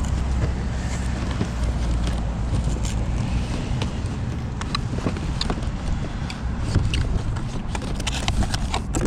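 Steady low rumble with scattered sharp clicks and knocks of cardboard and plastic packaging as an RC car is lifted out of its box.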